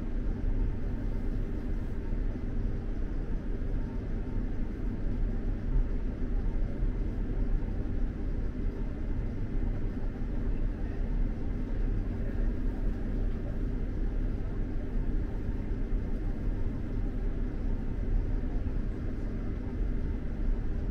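Steady low rumble of an X2000 high-speed train running at speed, heard from inside the passenger cabin.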